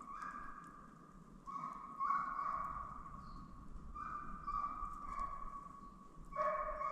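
Russian hound baying in a run of long, drawn-out notes, one after another with short breaks: the hound giving tongue as it runs a white hare's track.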